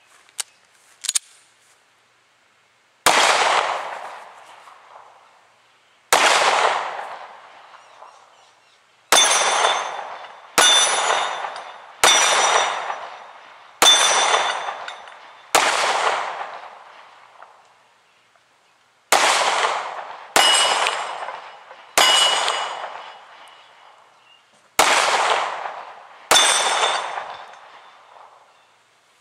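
Twelve 9mm pistol shots from a Springfield XD(M), each hitting a 3/8-inch AR500 steel plate target, which rings out with a metallic clang after every hit. The shots come irregularly, one to four seconds apart.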